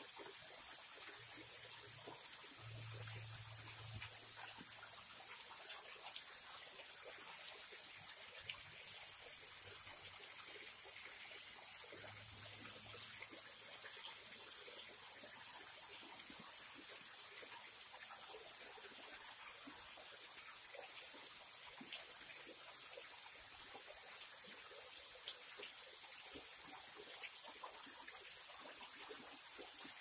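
Thin waterfall trickling in strands over a rock ledge into a shallow creek pool: a faint, steady splashing hiss with small drips and ticks.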